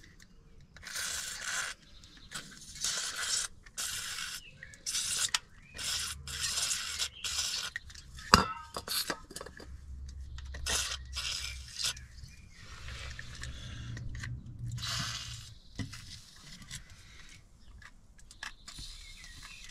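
Metal hand tools clinking and scraping, with rustling and a few sharp clicks, the loudest about eight seconds in.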